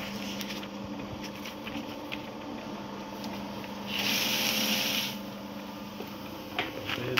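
Trozer desktop paper shredder running with a steady hum; about four seconds in, a stack of paper is fed in and the cutters shred it in a loud burst lasting about a second, after which the motor runs on empty. A few light clicks come near the end.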